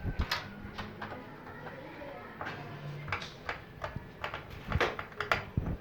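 Irregular clicks and knocks of a DIY speaker box being handled and closed up, a little louder toward the end.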